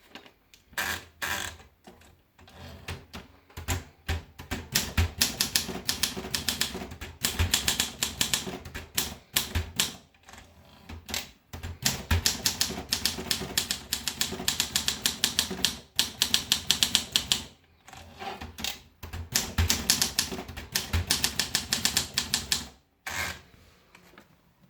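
Olympia SM2 manual portable typewriter being typed on: runs of rapid key strikes lasting a few seconds each, with short pauses between them.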